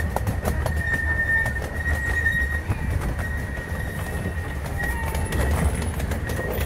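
Open riding cars of a miniature railway rolling along the track: a steady low rumble with many quick clicks from the wheels, and a steady high squeal that fades about two and a half seconds in and comes back near the end.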